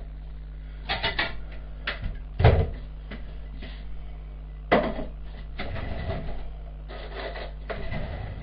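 Kitchen clatter: a cupboard door and crockery and utensils knocking as they are taken out and set down on a counter, a string of separate knocks with the loudest about two and a half seconds in. A steady low hum runs underneath.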